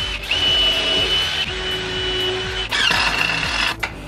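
Power drill running in three steady whining runs of about a second each with short pauses between, driving screws to join 2x4s into workbench corner legs.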